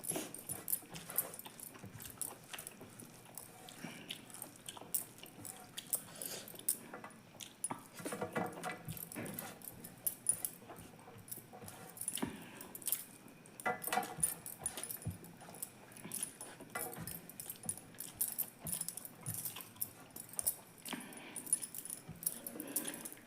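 Close-up eating sounds: chewing and mouth smacking with many small, quick clicks, and a few short pitched mouth noises in between.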